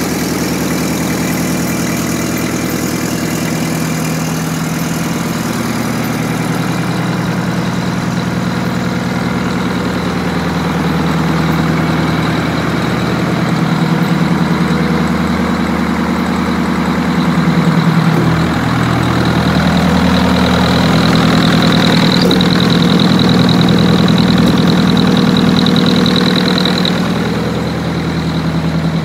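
Detroit Diesel 8V92TA two-stroke V8 marine diesel engine running steadily on a test stand, with a thin high whine that grows stronger in the second half.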